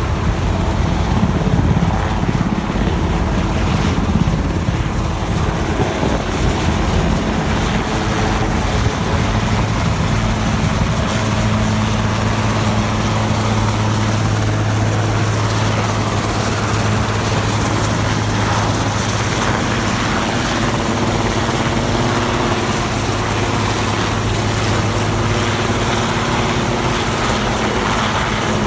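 Military transport helicopter hovering close by and approaching to land: steady rotor and engine noise, with a low steady hum that grows stronger about nine seconds in.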